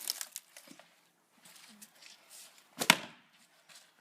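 An axe striking a log: a few short cracks at the start, then one loud, sharp chop about three quarters of the way in.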